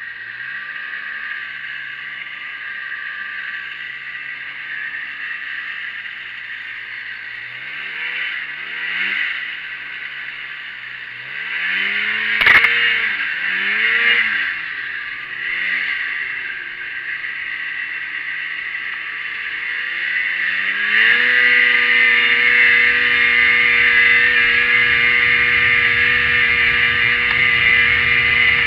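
1987 Arctic Cat Cougar snowmobile's two-stroke engine revving up and down several times at low speed, with one sharp knock a little before halfway. About three-quarters in, it climbs to a louder, higher note and holds it steady at full throttle.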